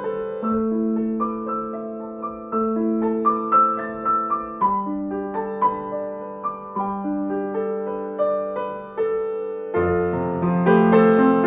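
Slow, gentle piano music of held notes, the low notes changing about every two seconds; the playing grows fuller and louder about ten seconds in.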